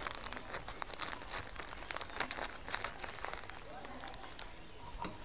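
Small scissors snipping through a plastic courier mailer bag as it crinkles and rustles in the hands, making a run of faint irregular snips and crackles.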